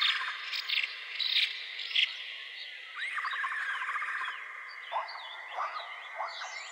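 Forest ambience: a steady high insect drone with short chirping animal calls layered over it, and a few rising calls near the end. The same run of calls recurs about four seconds apart.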